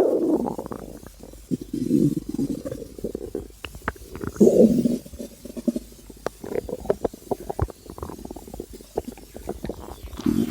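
A person's empty stomach growling and gurgling from hunger: several low rumbles in the first five seconds, then a run of short gurgling pops, and another rumble near the end.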